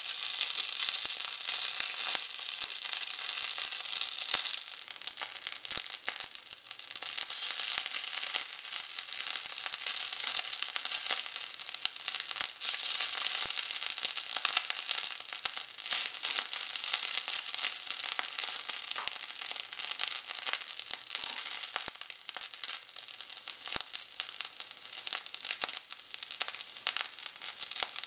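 Hot oil sizzling and crackling in a tiny metal frying pan as small pieces of food fry in it, a steady hiss dotted with many small pops.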